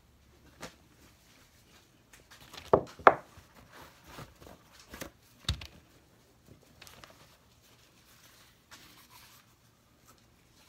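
A few sharp knocks and clatters of small objects being handled and set down, the two loudest close together about three seconds in and another about two seconds later, with softer rustling between.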